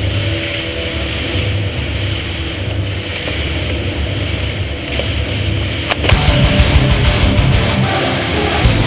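Heavy metal music with electric guitar, getting louder and fuller about six seconds in.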